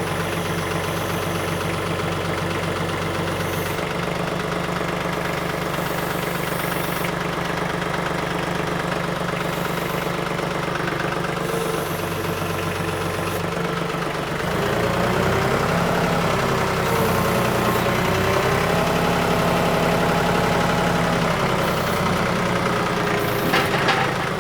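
TYM 2515H compact tractor's three-cylinder diesel engine running steadily. About two thirds of the way through it revs up louder and its pitch wavers as the loader works the heavy tote of firewood on the pallet forks. A brief click comes near the end.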